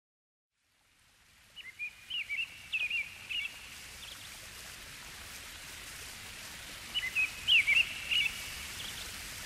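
A songbird sings a short phrase of quick chirps and whistles twice, about five seconds apart, over a steady rushing background hiss. The track fades in from silence during the first second.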